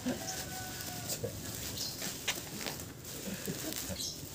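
Bubble wrap rustling and crinkling in short scattered crackles as a cardboard box is pulled out of it and handled.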